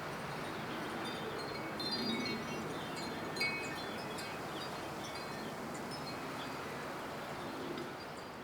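Wind chimes tinkling in scattered high, bright strikes over a steady wind-like hiss. The sound begins to fade out near the end.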